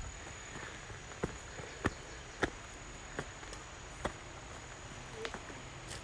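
A steady high-pitched insect hum, crickets or similar, with scattered sharp clicks about every half second to a second.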